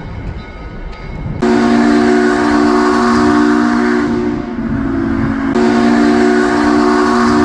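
Steam locomotive 1309's chime whistle blowing two long blasts, a chord of several low tones over a hiss of steam. The first blast starts suddenly about a second and a half in and fades. The second starts about a second later and runs on.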